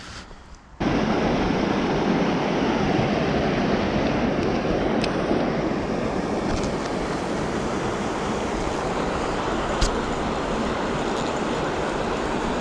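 Loud, steady rush of flowing water that starts abruptly about a second in, with a couple of faint clicks over it.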